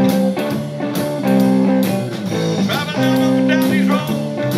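Live blues-rock trio playing: electric guitar chords held about a second at a time over bass guitar, punctuated by drum kit and cymbal hits, with some wavering bent notes about halfway through.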